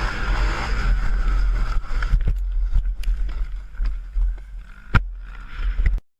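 Off-road vehicle engine running with wind noise on the microphone, then scattered knocks and one sharp thump about five seconds in. The sound cuts off suddenly near the end.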